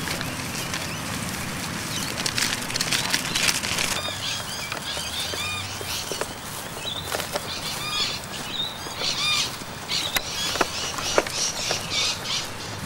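Small birds chirping with short, high, arched notes over a steady outdoor rustle, joined by a few sharp clicks later on.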